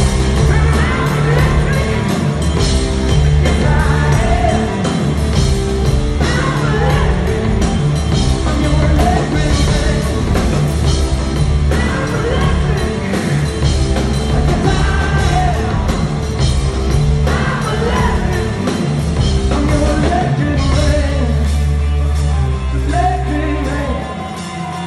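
Rock band playing live and loud, electric guitar and a heavy low end under a male lead vocal singing into a microphone, recorded from the audience on a phone.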